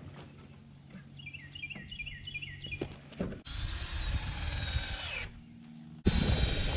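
Power drill driving screws into a wooden floor truss: one run of about two seconds that winds down as it stops, then a second run starting near the end.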